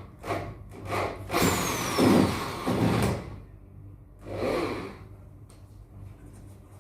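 Knocking and scraping as a wooden partition is taken apart: two short knocks, then a long scrape of about a second and a half, and a shorter scrape a little later.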